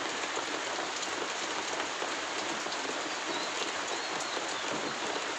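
Steady rain falling: an even hiss with small scattered drip ticks.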